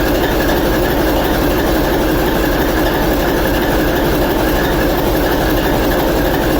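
V-16 diesel engine of a TEP70 passenger locomotive running steadily and loudly, one of its first runs after a repair. The engine is the 16-cylinder turbocharged 2A-5D49.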